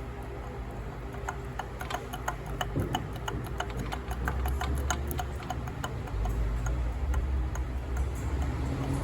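Suzuki Yes 125's single-cylinder four-stroke engine running with a ticking, clicking noise from the motor, several sharp ticks a second. This is the engine noise being shown as the problem. The engine gets louder about four seconds in and again near six seconds.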